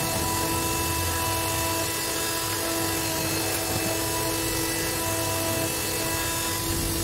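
Electric scroll saw running steadily with a constant hum.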